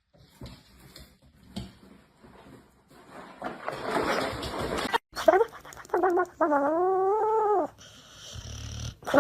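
A dog vocalising: short pitched yelps from about five seconds in, then one long wavering call lasting over a second.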